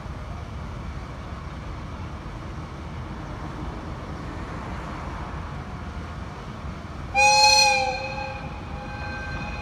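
Diesel shunting locomotive moving slowly with a steady low engine rumble. About seven seconds in it sounds its horn once: a sudden loud blast that drops back and trails off over the next two seconds.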